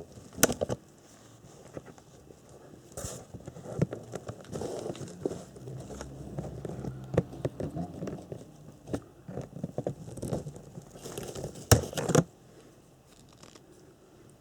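Packaging being handled: plastic crinkling and rustling with scattered clicks and knocks, busiest in the middle and with the sharpest snaps about twelve seconds in.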